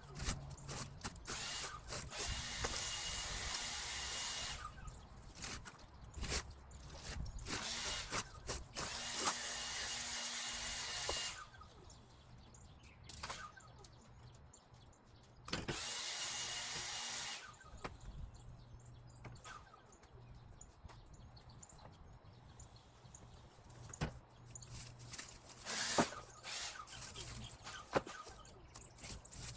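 Leaf blower run in three bursts, a few seconds each, with a steady whine over a rush of air. Scattered clicks and knocks fall between the bursts.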